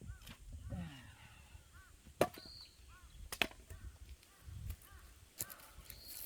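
Axe striking and splitting firewood: two sharp chops about a second apart, a couple of seconds in, then a lighter knock near the end. Faint bird calls sound between the strokes.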